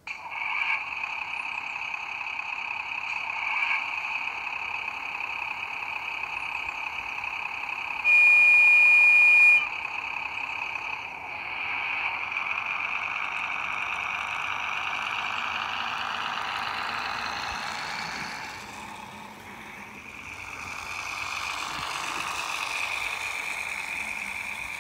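H0 Märklin 39978 rail bus model's sound decoder playing a diesel railcar engine through its small loudspeaker, steady and with little bass. About eight seconds in, one loud horn blast lasting about a second and a half.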